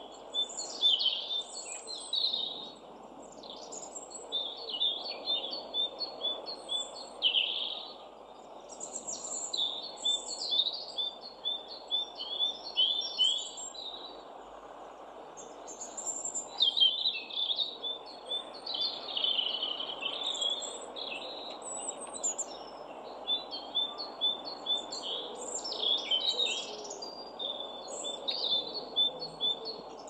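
Small songbirds singing throughout, in rapid chirps and twittering phrases, over a steady low background hum.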